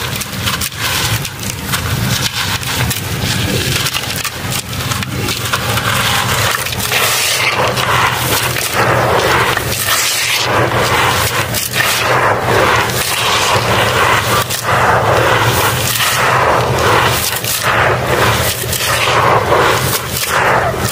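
Dry, powdery dirt crumbled in the hands and poured back into a metal tub: a continuous gritty, crunchy hiss with crackles as the clumps break and the grains land, louder from about a third of the way in.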